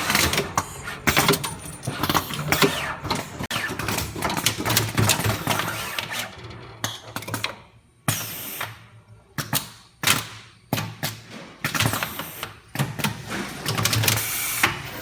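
Homemade automatic terminal-crimping machine running, with irregular mechanical clicks and clatter. It goes quieter for a few seconds around the middle, then picks up again.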